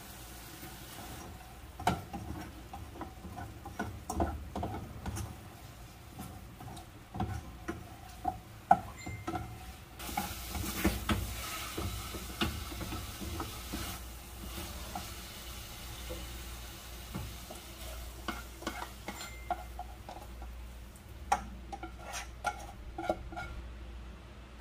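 Black plastic spatula stirring sautéed meat in a metal saucepan, scraping and knocking against the pan over a sizzle of frying. The sizzle is strongest about ten seconds in.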